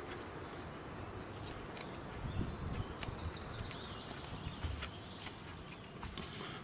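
Footsteps on sandy ground with handling noise from a handheld camera: scattered light clicks and soft low thumps, with a faint high wavering tone in the background from about two seconds in.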